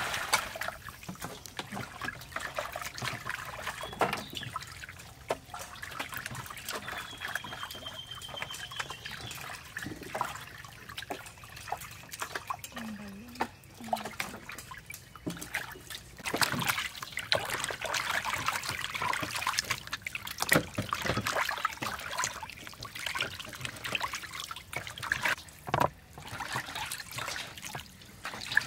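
Hands washing raw chicken wings in a steel bowl of water: irregular splashing, sloshing and dripping, with water poured from a plastic dipper at the start.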